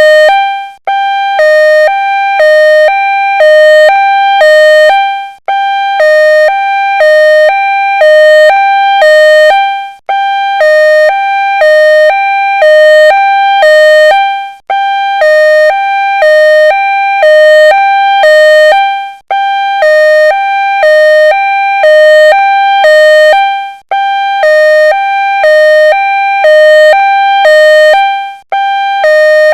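Ambulance siren sounding in a two-tone hi-lo pattern, switching between a higher and a lower steady pitch about every half second, with a brief break every four to five seconds.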